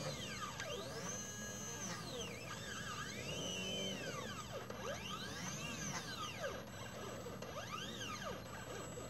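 Stepper motors of a mini CNC laser engraver whining as they drive the laser head along a zigzag path. The pitch keeps sweeping up and down in arches, about once a second, as the axes speed up and slow down on each stroke.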